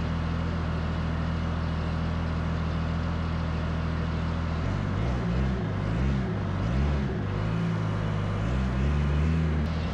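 BMW M57 straight-six diesel running on an engine stand, first steady, then its speed hunting up and down from about halfway in, before it cuts out near the end. The fuel system has not been bled of air.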